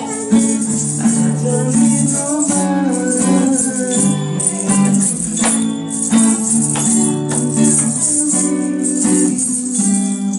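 Acoustic guitar strummed, with singing over it and a rattling shaker keeping the beat.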